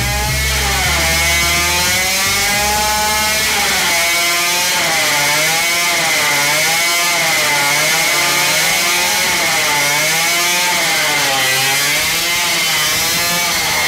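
Supercharged 50cc two-stroke engine running, its pitch rising and falling over and over as it is revved up and down.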